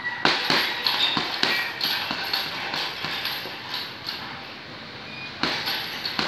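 Sharp slaps and thuds from a kickboxing heavy-bag workout, coming several a second at first and then more sparsely, with one loud hit about five and a half seconds in.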